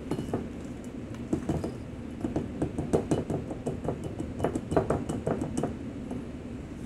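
Pink Himalayan sea salt pouring from a plastic tub into an empty glass mason jar, the grains striking the glass as many small, irregular clicks, several a second.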